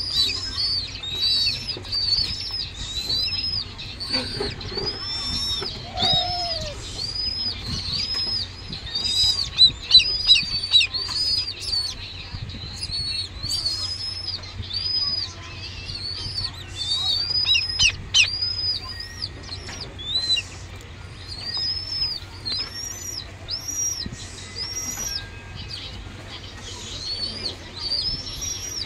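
Downy bird of prey chick calling steadily while it is hand-fed, a long run of short, high, thin squeals that rise and fall, about two a second: food-begging calls.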